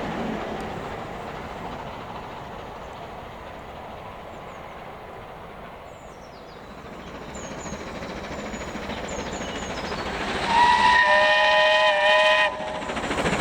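Steam locomotive running: its rumble fades over the first few seconds, then builds again. Near the end its chime whistle is blown once for about two seconds, several tones sounding together, and it cuts off sharply.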